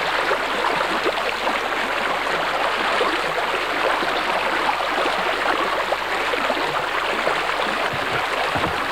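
Shallow stream rushing over rocks in a small cascade close to the microphone: a steady, even rush of water.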